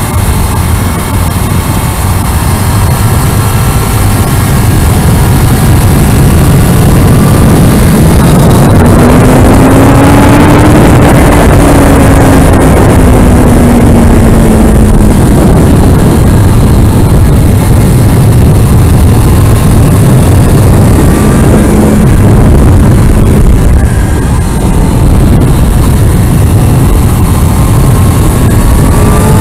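Kawasaki Ninja ZX-6R inline-four engine running hard at track speed under heavy wind roar on the camera's microphone. About a third of the way in the engine note climbs as the bike accelerates, then falls away again; near the end it starts climbing once more.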